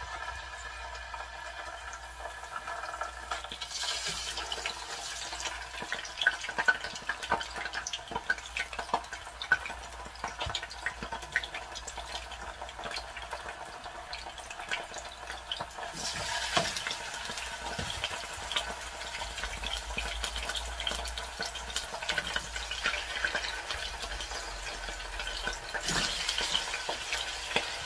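Marinated chicken pieces frying in hot olive oil in a nonstick pan: a steady sizzle full of small crackling spits of oil, browning the meat. The sizzle swells about four seconds in, again around sixteen seconds and near the end as more pieces go into the pan.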